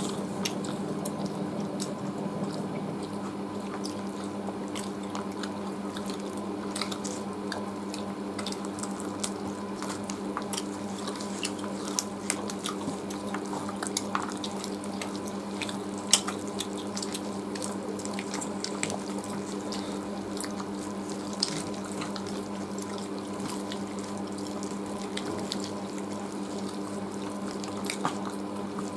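Close-up eating by hand: wet chewing and lip smacking, with many small sharp clicks scattered throughout, over a steady low hum.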